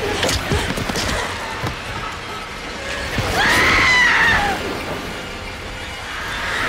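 Film sound mix of a swarm of winged alien creatures attacking: a dense rush of knocks and clicks over music, with a loud shrill scream rising and falling for about a second near the middle.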